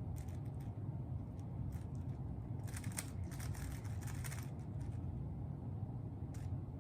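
Plastic Rubik's cube being turned by hand: scattered clicks of the layers snapping round, with a quick run of turns about three to four and a half seconds in, over a steady low room hum.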